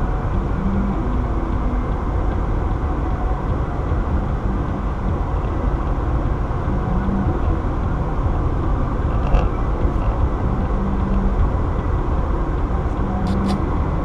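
Steady road and tyre noise of a car driving at highway speed, heard inside the car's cabin.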